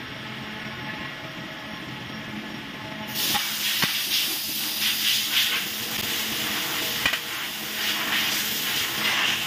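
A steady low hum, then a loud, steady hiss that starts suddenly about three seconds in and keeps going, with a couple of sharp clicks.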